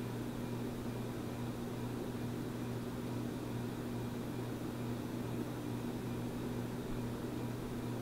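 Encon Imperial 56-inch ceiling fan running steadily at speed: an even motor hum with the rush of air from the blades.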